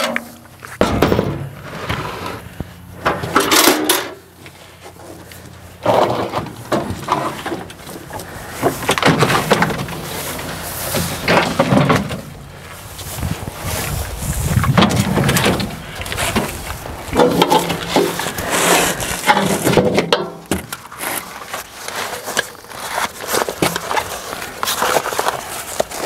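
Irregular clunks, knocks and scraping from handling heavy batteries and tools while the batteries are set back into an old bulldozer's battery box.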